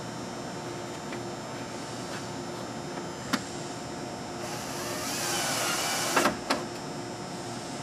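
Plastic wall-panel trim sliding into place with a scraping hiss for about two seconds, followed by two sharp knocks. A single click comes earlier, over a faint steady hum.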